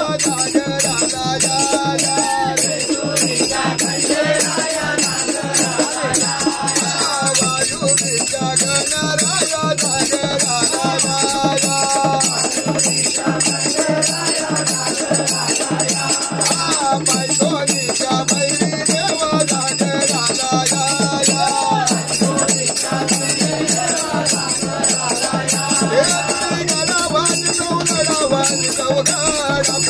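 Hindu devotional bhajan: a man sings at full voice to a fast, steady beat on a small hand drum.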